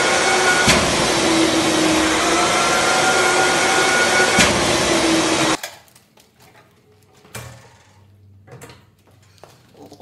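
Dashclean K31 industrial dust extractor running loud and steady with a motor whine, with two sharp clacks about four seconds apart as the jet-pulse filter-cleaning lever is worked. The motor cuts off abruptly a little after halfway. Faint clicks and knocks follow as the motor head's latches are handled.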